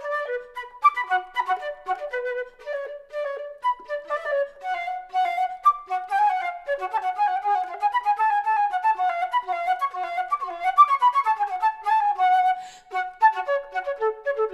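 Background music: a flute playing a quick melody of many short notes.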